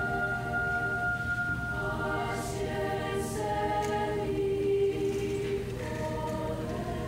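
High school choir singing, holding long chords that shift every second or two.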